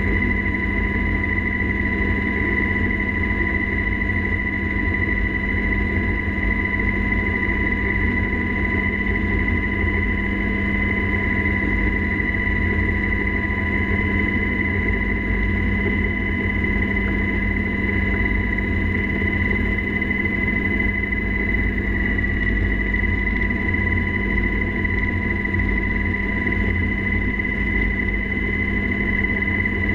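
UH-60 Black Hawk helicopter in flight, heard from inside the cockpit: a steady high whine over a heavy, constant drone and rumble.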